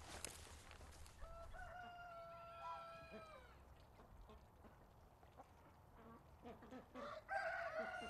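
Rooster crowing: one long held call beginning about a second in. Near the end come shorter calls, then a second crow, louder than the first.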